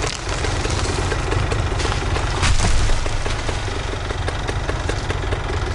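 An engine running steadily under a rapid crackle of snaps, swelling to a louder burst about two and a half seconds in.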